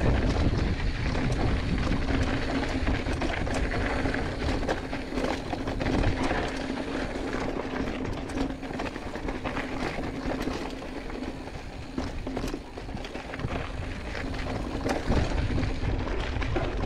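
Giant Fathom 2 hardtail mountain bike rolling over a rocky dirt trail: tyres crunching on grit and stones, with frequent clicks and rattles from the bike over the bumps and wind rumbling on the microphone.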